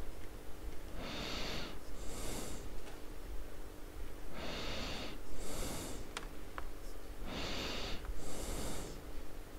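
A man breathing hard: three forceful breaths in and out, each a quick pair of hissing rushes of air, about three seconds apart.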